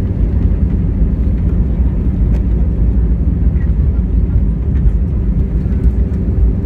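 Airbus A320-200 cabin noise heard from a passenger seat: a steady low rumble of engines and airflow with a constant hum over it.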